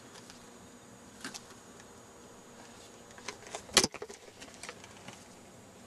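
Camera knocked about as a cat leaps from a pear tree onto the cameraman's shoulder: scattered scrapes and rustles, then one loud thump a little before four seconds in, followed by a few smaller knocks.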